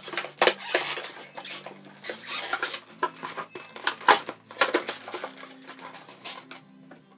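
A stiff plastic blister pack with a cardboard backing being forced open by hand without cutting: irregular crackling, snapping and scraping of the plastic, which thins out near the end.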